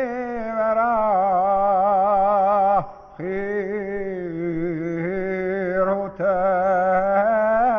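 A solo voice singing a slow, chant-like melody: long held notes with a wavering vibrato, in three phrases with short breaks between them.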